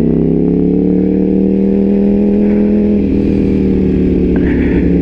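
Motorcycle engine running at a steady road speed while riding. Its note eases slightly lower and shifts a little about three seconds in.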